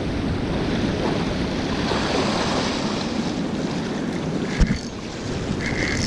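Wind buffeting the microphone over surf washing against jetty rocks, with a single sharp low thump about two-thirds of the way through and a short high whir near the end.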